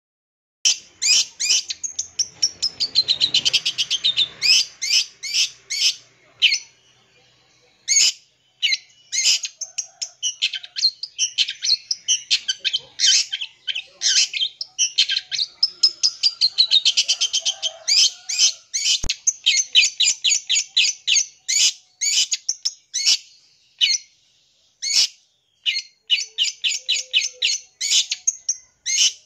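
Long-tailed shrike (cendet) singing a fast, varied song of rapid high chirps and trills, with falling sweeps, packed with mimicked calls of other birds. The song starts about half a second in and goes on with short pauses.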